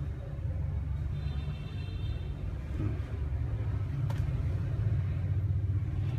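Steady low background rumble, with a faint high tone about a second in and a single light click around four seconds in.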